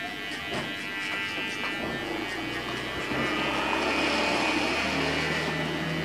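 Electric hair clipper buzzing steadily as it cuts short hair at the nape in upward passes, a little louder from about three seconds in.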